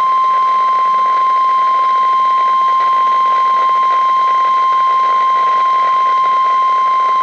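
NOAA Weather Radio 1050 Hz warning alarm tone: one loud, steady beep held unbroken over radio hiss, signalling that a warning such as this severe thunderstorm warning is about to be read.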